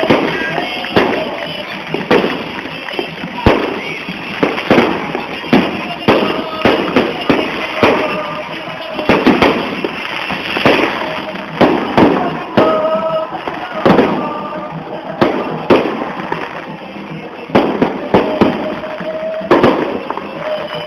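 Fireworks and firecrackers going off in a loud, irregular string of sharp bangs, one to two a second, mixed with short held tones.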